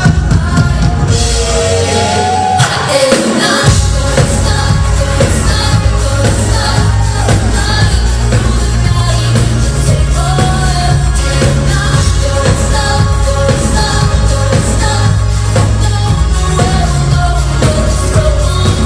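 Live synth-pop band: a woman singing lead over drums and keyboards, loud and full. About two seconds in, the deep bass end drops out, then the full band comes back in.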